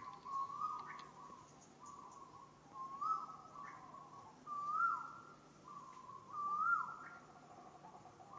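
A bird's whistled call repeated about every two seconds, four times. Each call is a level note followed by a higher note that slides back down.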